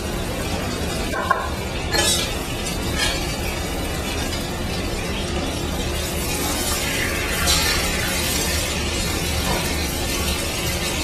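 Chicken pieces frying in hot olive oil in a pan: a steady sizzle with a few sharper crackles, about two, three and seven seconds in.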